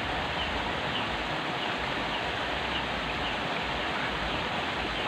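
Steady rush of water flowing through a small concrete drain, with faint short high chirps repeating every half second or so.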